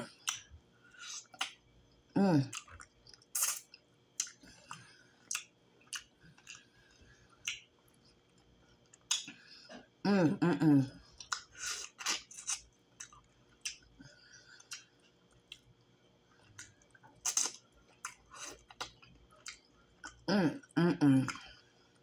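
Close-up eating sounds of fried fish being eaten by hand: wet chewing and many short lip smacks and clicks. Three brief wordless vocal sounds come about two, ten and twenty seconds in.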